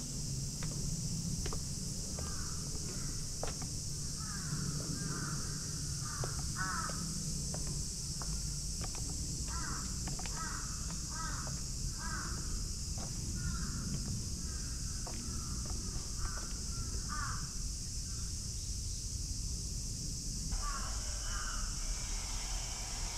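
Crows cawing in runs of several calls again and again, over a steady high hiss and a low hum.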